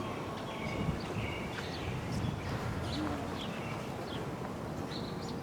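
Birds chirping, short scattered calls over a steady low background hum.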